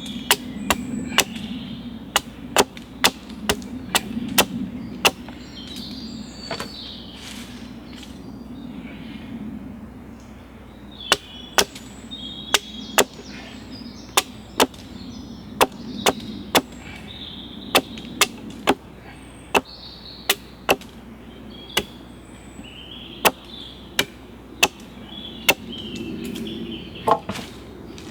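Chopping a point onto a wooden stake with a bladed tool: sharp strikes into wood at an uneven pace, mostly one or two a second, with short pauses between runs.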